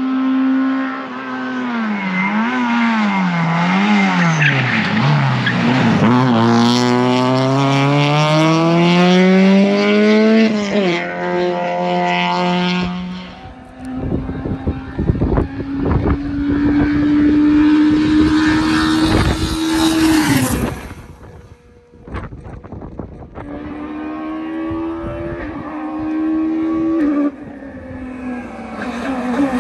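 Rally cars at full attack on a tarmac special stage, heard one after another. The engine pitch drops in steps as a car downshifts and brakes for a hairpin, then climbs through the gears as it accelerates away. Sharp knocks sound through the middle passage.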